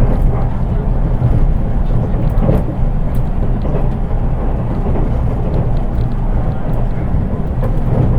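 Interior running noise of a JR East 183 series electric train, heard in the unpowered driving trailer car KuHa 183-1528: a steady low rumble of wheels on rails with a few faint ticks. Because the car has no motors, there is little motor sound, and the recording sounds rather plain.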